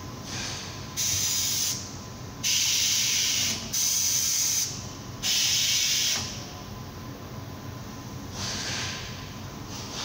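Compressed air hissing from a tyre changer's pneumatic valves: four loud hisses of about a second each, each starting and stopping abruptly, within the first six seconds.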